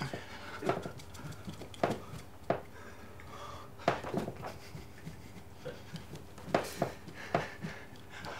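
A man air drumming frantically with no drum to strike: irregular knocks and thumps as he thrashes about, with breathy grunts of effort.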